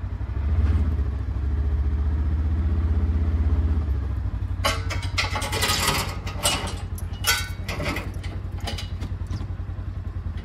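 Engine running steadily with a low pulse. It runs louder for a few seconds near the start, then drops back, and a run of sharp metallic clanks and knocks follows.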